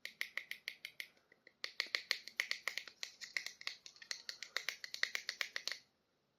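Rapid sharp clicking, about six clicks a second, from plastic toy packaging being handled and opened, with a short pause a little over a second in, stopping shortly before the end.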